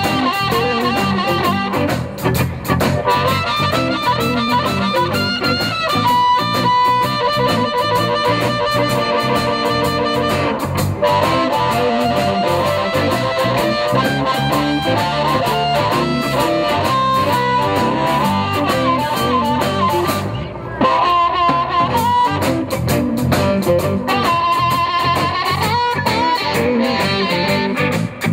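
Live blues band playing: a harmonica played into a cupped hand-held microphone takes the lead over electric bass, guitar and drums, with bending, wavering notes.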